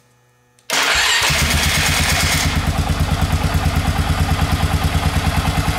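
A 1999 Polaris Sportsman 500's single-cylinder four-stroke engine starts suddenly a little under a second in, then settles into a steady, evenly pulsing idle. This is the run that primes the oil pump after an oil change, with the clutch cover off and no belt on the exposed primary clutch.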